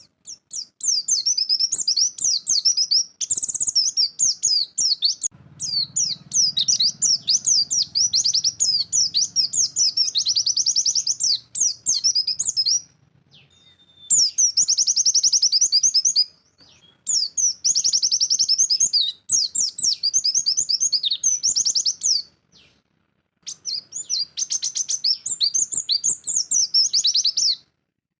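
A pleci (white-eye) singing its rapid-fire 'nembak' song: fast, high-pitched twittering in long runs of several seconds, broken by a few short pauses.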